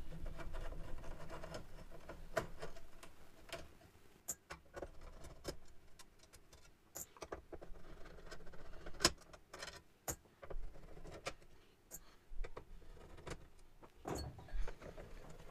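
Screwdriver working out the screws of the steel bump-stop plate on a Yamaha CS-80 keybed, with irregular small metallic clicks and taps as screws, tool and plate are handled, one sharper tap about nine seconds in.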